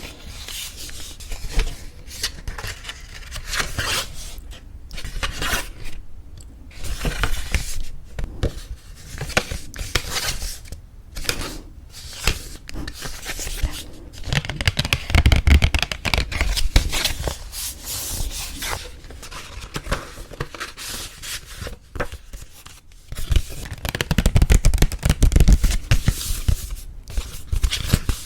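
Paper wedding invitation cards being handled close to the microphone: rustling, rubbing and crinkling of stiff paper, with irregular sharp crackles and some heavier handling bumps.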